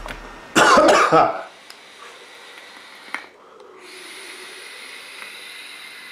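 A forceful exhale of e-cigarette vapour about half a second in, then a steady faint hiss from about four seconds in as a long drag is drawn through the e-cigarette.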